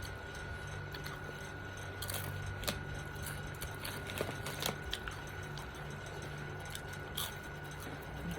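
Crunchy tortilla chips being chewed, with a few sharp, separate crunches over a steady faint hum.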